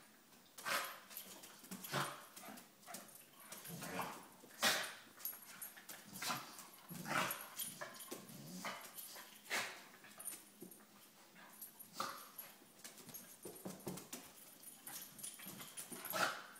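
Two dogs play-wrestling, snorting and sneezing in a string of short, irregular bursts. The sneezes are typical of dogs signalling that the roughhousing is play.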